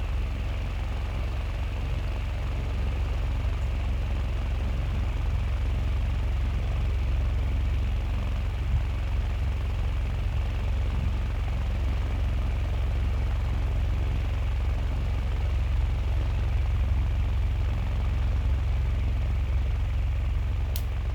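Small battery-powered motor of a homemade ceiling fan running steadily, a constant low hum with the whir of its blades. One short, sharp click near the end.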